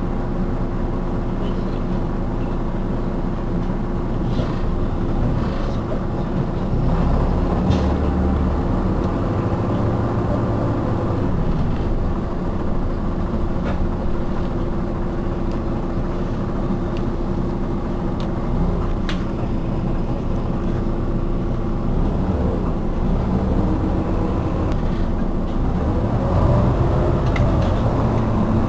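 Iveco Urbanway 18 articulated city bus idling at a stop: a steady engine hum with a constant mid-pitched tone over it.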